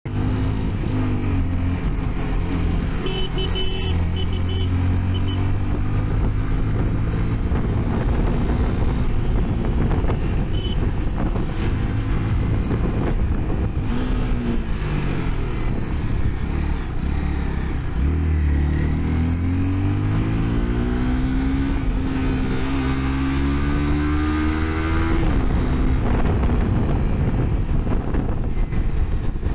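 Honda CBR 250R's single-cylinder engine heard from the rider's seat, its pitch rising and falling as the throttle is rolled on and off through the bends, over a steady rush of wind noise.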